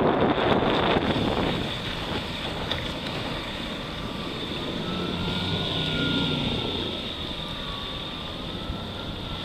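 Outboard motor of a small aluminium runabout running at speed as the boat goes by, a thin whining engine note that rises and then slowly falls in pitch. The first second or so is a loud rush of wind noise.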